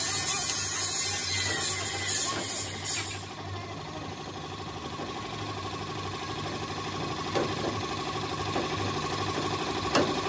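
An engine running steadily at a low, even speed. A loud hissing noise runs for about the first three seconds, then stops.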